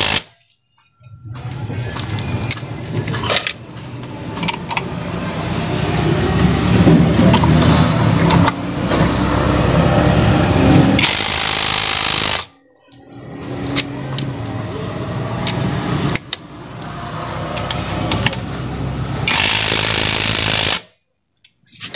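Cordless impact wrench hammering in two short bursts, about halfway through and near the end, running down the drive-pulley and clutch nuts of a Honda Click 150's CVT. Between the bursts a low drone slowly builds up.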